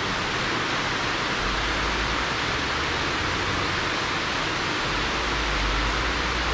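Water pouring down a concrete dam spillway: a steady, even rush of falling water.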